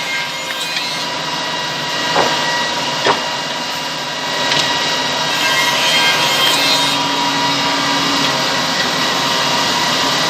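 Two-head CNC tenoning machine running and cutting tenons in wood: a steady machine noise with a constant whine, two sharp knocks a couple of seconds in, and somewhat louder cutting through the second half.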